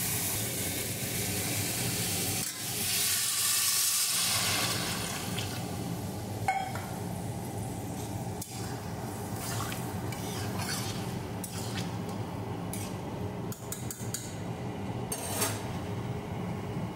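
Water poured into a hot iron kadai of frying ridge gourd and potato, with a burst of hissing about two to four seconds in. A metal spatula then stirs and scrapes the pan, making scattered clinks, while the pan keeps sizzling.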